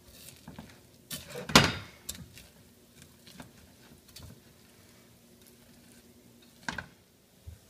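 A spatula stirring sticky marshmallow-coated Rice Krispies in a stainless steel pot, with scattered knocks and scrapes against the pot, the loudest about one and a half seconds in.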